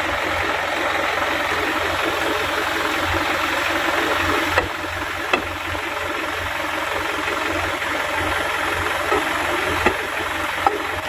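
Truck engine idling steadily, with a few short sharp knocks about halfway through and near the end.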